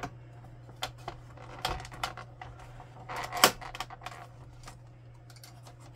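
Plastic parts of an inkjet printer's paper-pickup roller and gear assembly clicking and knocking as they are handled and pried at, in irregular clicks with the sharpest about three and a half seconds in.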